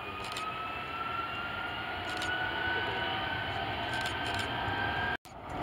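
Boeing 757 jet engines at high power as the airliner accelerates along the runway on its takeoff roll: a steady jet noise with a whine that rises slowly in pitch. The sound drops out abruptly for a moment near the end.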